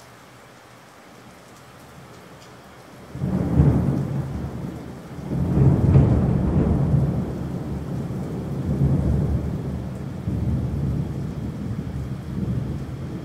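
Steady rain, then thunder breaking in suddenly about three seconds in, swelling again a couple of seconds later and rolling on in a low rumble that eases near the end.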